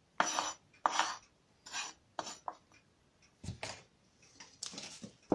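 Spoon scraping flour across a wooden cutting board in short repeated strokes, about five quick ones in the first half and softer ones after, spreading a dusting of flour. A brief tap near the end.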